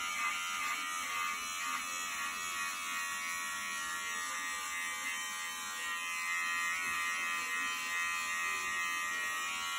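Electric beard trimmer running with a steady buzz as it is worked through short hair around the ear.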